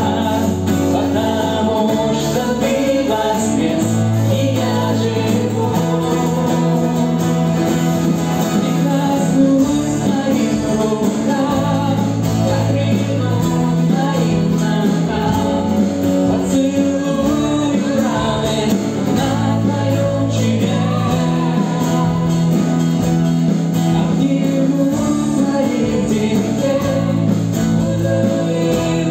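Live worship band playing a song in Russian: a man and a woman singing over acoustic guitar, electric guitar and an electronic drum kit, with held low notes that change every couple of seconds.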